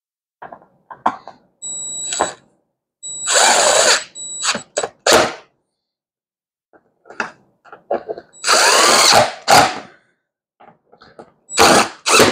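Cordless power driver running in several short bursts, each up to about a second long, snugging up the bolts of a motorcycle seat backrest.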